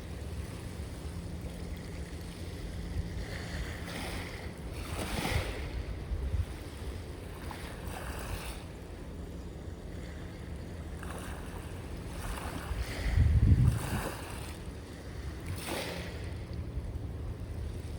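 Sea waves washing in and breaking, several separate washes, over a steady low rumble of wind on the microphone. A louder low gust or thump comes about thirteen seconds in.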